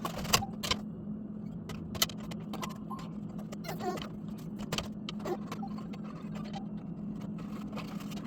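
A steady low motor hum with scattered sharp clicks and clinks over it, the loudest about half a second in and about two seconds in.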